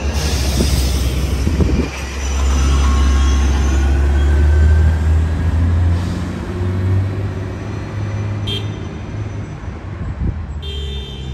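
Orion VII transit bus engines running as the buses pull away and drive along in street traffic: a steady deep engine drone that grows louder about two seconds in.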